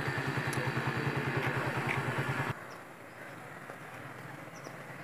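A small engine idling with a rapid, even putter, cutting off abruptly about two and a half seconds in. A quieter outdoor background follows, with a faint high chirp near the end.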